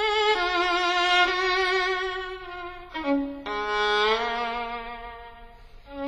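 Background music: a solo violin playing slow, held notes with vibrato, with an upward slide partway through and a softening toward the end.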